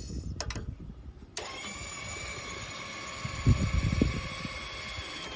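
Electric gate operator motor starting about a second in and then running steadily with a whining gear drive as it moves the gate. Two sharp clicks come just before it starts, and a few loud low knocks come midway.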